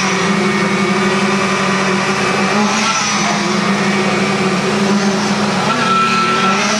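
An engine or motor running steadily with a constant low hum. A short, steady high tone sounds briefly near the end.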